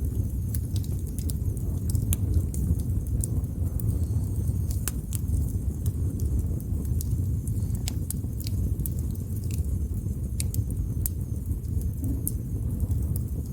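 Wood fire burning: irregular sharp crackles and pops from the burning wood over a steady low rumble of the flames.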